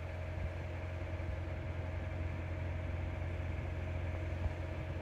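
EMD GP9 diesel locomotive's 16-cylinder two-stroke engine running, a steady low drone with a faint steady tone above it.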